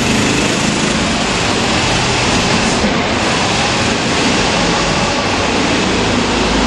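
Go-kart engines running steadily, heard from aboard a moving kart, with a loud even rushing noise.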